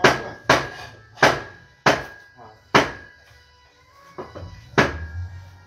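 Meat cleaver chopping through a whole roast pig: about seven sharp chops at an uneven pace, with a pause a little past halfway.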